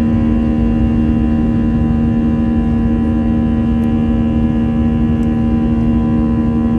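Cabin noise of an Airbus A321's CFM56 turbofan engines at takeoff power in the initial climb just after liftoff: a steady, loud engine drone with strong low humming tones.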